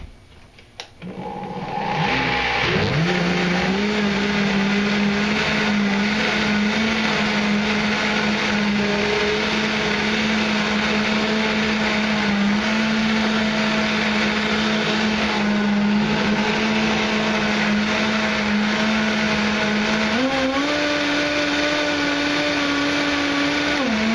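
Vitamix blender motor blending a cranberry, raisin, sugar and water wine must. It spins up about a second in to a steady high-speed run, steps up to a higher pitch near the end as the speed is raised, then winds down in pitch as it is switched off.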